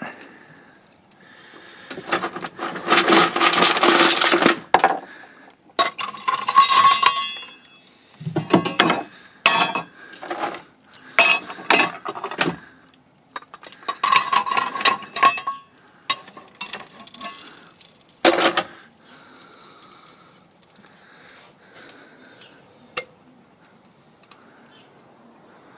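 Lumps of coal clattering and clinking into the firebox of a small vertical steam boiler as the fire is stoked on top of burning wood. It comes in several bursts of clatter, the last about eighteen seconds in.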